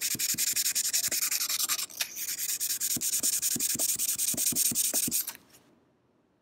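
Sandpaper folded over a rubber block, rubbed in quick, short back-and-forth strokes against the steel of a Swedish frameback straight razor blade, up into the corner by the spine to clean off grime. The rasping stops briefly about two seconds in and stops for good about five seconds in.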